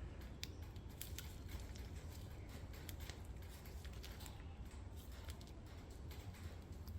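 Faint handling noise, scattered small clicks and rustles, as hands work CV joint grease into a new rubber CV boot, over a steady low hum.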